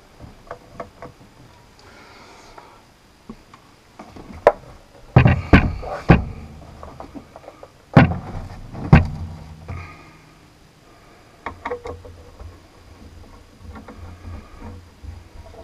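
The metal case of a Kenwood TS-50 transceiver being handled on a bench. A few light clicks come first. Heavy knocks and thuds follow about five to six seconds in and again near eight and nine seconds, as the radio is turned over and set down on its top. Fainter scraping and ticking of a screwdriver working on the bottom screws comes after.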